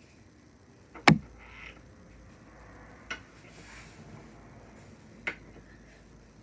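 Fabric aerial hammock swinging and spinning on its hanging hardware. There is a loud sharp knock with a low thud about a second in, then lighter clicks about every two seconds, keeping time with the swing.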